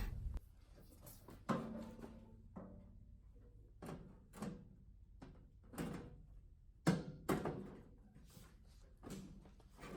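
Stainless steel sifter body and tabletop knocking and clunking as they are lifted, lined up and set together: about eight separate thunks spread unevenly, some with a short ring.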